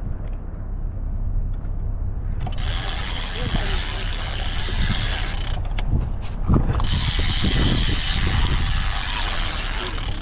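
Fishing reel ratcheting and running under load while a large queenfish is played on the line, in two long stretches of about three seconds each with a short break between. Wind rumbles on the microphone.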